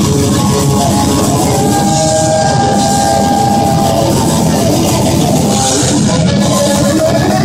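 Death metal band playing live: electric guitars and drums, loud and steady.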